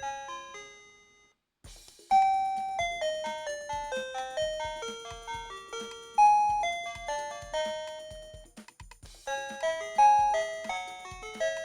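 A wireless doorbell receiver plays electronic chime tunes, melodies of bell-like notes that each ring out and fade. One tune ends just after the start, and after a short pause a new one begins about two seconds in. It breaks off briefly about three quarters of the way through, then a melody starts again.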